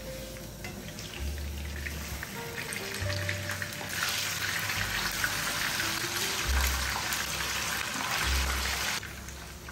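Chicken pieces sizzling in hot oil in a frying pan, the sizzling rising sharply about four seconds in and cutting off suddenly near the end. Background music with a bass line plays throughout.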